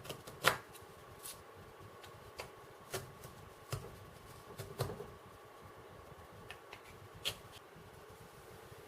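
Irregular light clicks and taps of small hard objects being handled, about a dozen spread over several seconds, the loudest about half a second in, over a faint steady hum.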